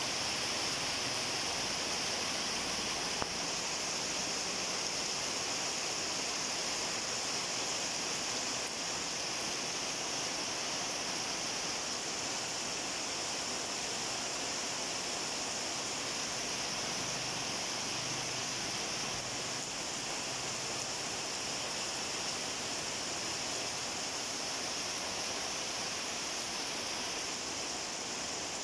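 Steady rain falling on a garden, an even hiss with no let-up.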